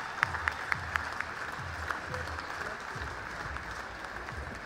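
Audience applauding, with a few sharper, closer claps standing out in about the first second.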